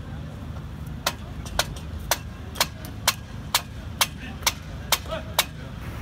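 A run of about ten sharp taps, evenly spaced at roughly two a second, over a low steady rumble.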